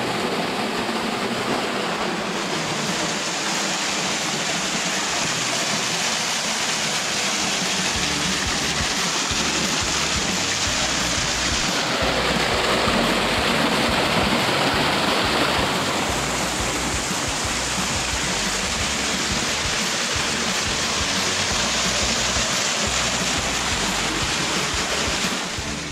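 Small waterfall pouring over rocks into a shallow stream pool: a steady rush of falling and splashing water, a little louder for a few seconds about halfway through.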